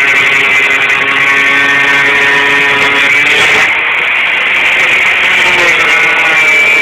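Electric angle grinder with an abrasive disc cutting into a car's sheet-metal fender. Its steady motor whine shifts in pitch about halfway through and again near the end as the disc is worked along the wheel-arch edge.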